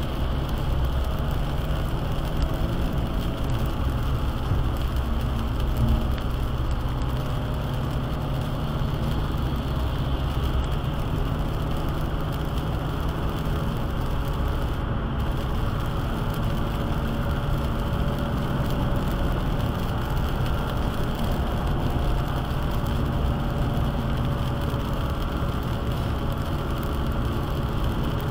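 Steady road noise inside a car on a wet highway: a low rumble of engine and tyres, with the hiss of rain and spray on the wet road and windshield.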